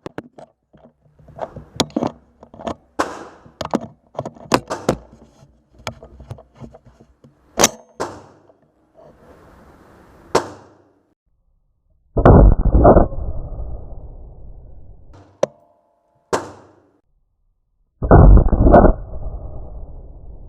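Two .223 rifle shots about six seconds apart, each very loud with a long rolling echo. Before them comes a run of short metallic clicks and knocks from handling the rifle.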